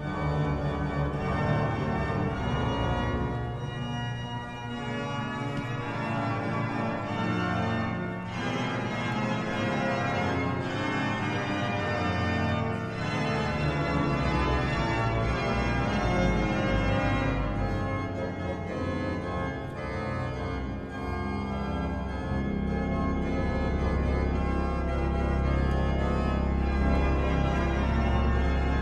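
Pipe organ playing slow, sustained chords. In the second half a deep bass pedal note is held under them.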